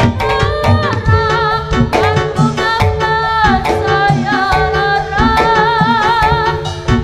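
Live Javanese jaranan music: a singer's voice, wavering with vibrato, over steady kendang drumming and gamelan percussion.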